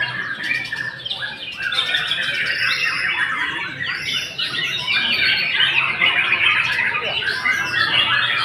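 White-rumped shama (murai batu) singing non-stop: a dense, unbroken stream of varied whistles, chirps and quick squawky notes.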